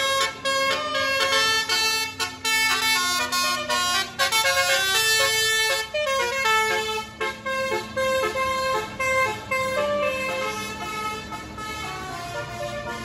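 Bus telolet horn of the Basuri type, a multi-tone musical air horn, playing a quick tune of short notes changing several times a second over a steady low tone. The tune gets quieter near the end.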